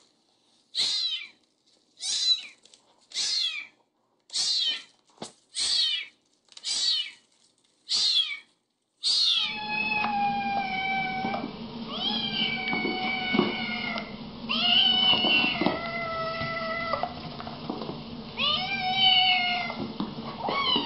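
A small tabby kitten mewing in short, high calls about once a second. Partway through, the sound switches to a Siamese cat giving long, drawn-out meows, each held a second or two, over steady background hiss.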